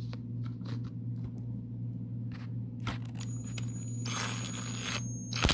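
Power driver tightening the screw that holds the fan blade onto the motor shaft: a high motor whine for about two seconds in the second half, cutting off suddenly near the end, over a steady low hum.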